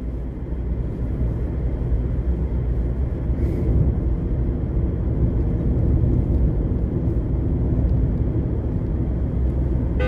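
Steady low rumble of a moving car heard from inside the cabin: engine and road noise while driving.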